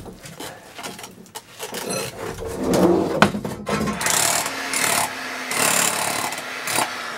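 Scraping, rubbing and sharp knocks of hand work on the sewer pipe and soil in a floor hole, then a run of loud rasping strokes in the second half.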